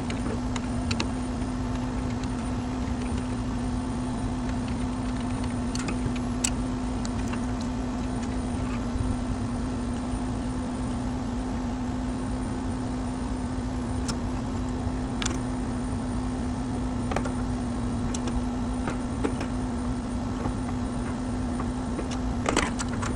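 A steady mechanical hum with a constant low tone over a background rumble, broken by scattered light clicks and taps of a hand tool working wires at the compressor terminals.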